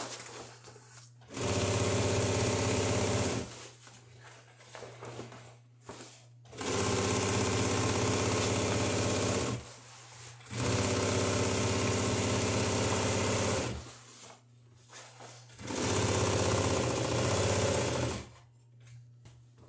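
Sailmaker's sewing machine stitching mainsail sailcloth, running in four steady bursts of two to three seconds each, with short pauses between.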